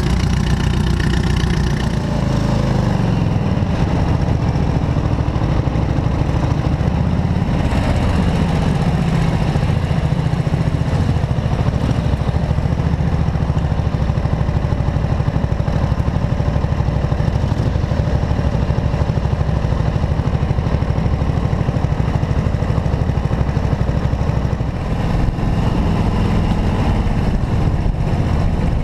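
Classic motorcycle engine heard from the rider's own bike, running steadily under way, with the revs changing about three seconds in and again near the end.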